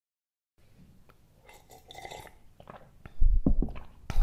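Footsteps and movement in a room: silence at first, then faint scattered sounds, then a few heavy low thumps and a sharp knock near the end.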